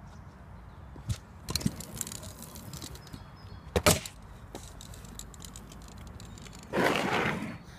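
Stunt scooter clattering on a concrete skatepark ramp: a few sharp clicks and knocks of the wheels and deck, the loudest about four seconds in, then a short rush of handling noise near the end.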